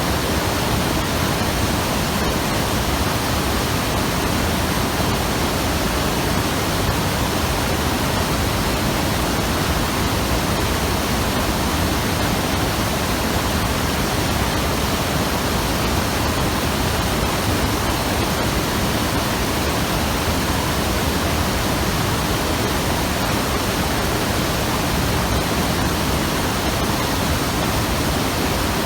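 Hayakawa mountain river rushing over rocks: a loud, steady torrent of water noise that never changes.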